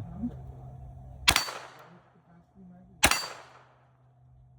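Two gunshots from an AR pistol, about a second and three quarters apart, each a sharp crack with a short echoing tail.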